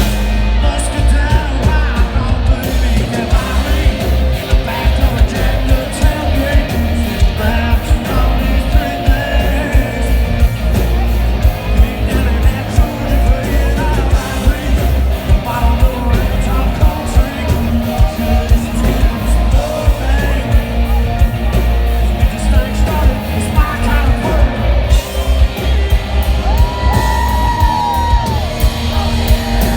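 A live country-rock band plays loudly, with heavy bass, a steady drumbeat and an amplified singer, while the crowd yells and sings along.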